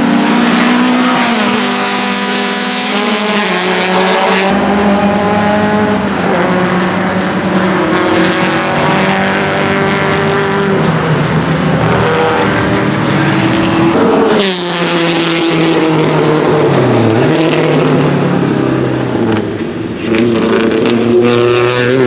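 Racing BMW 2002's naturally aspirated four-cylinder engine at full throttle, its pitch climbing through each gear and dropping back at every shift. About two-thirds of the way in, a car sweeps past close by, its engine note rising and then falling.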